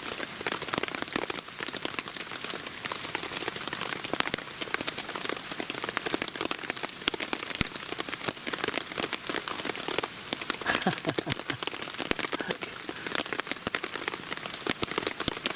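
Steady rain, many separate drops ticking on a surface over an even hiss.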